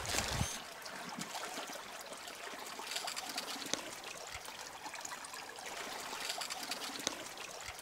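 Paria River water trickling and flowing steadily, with a few faint clicks scattered through it.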